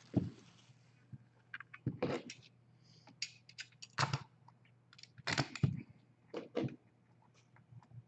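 Trading cards and their packaging being handled: scattered small clicks, taps and short rustles of cardboard and wrapper as a pack is pulled from the box.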